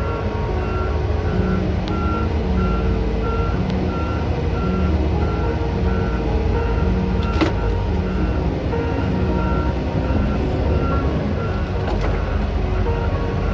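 A backup alarm beeping at an even pace over a heavy diesel engine running steadily, typical of heavy equipment moving in reverse during loading.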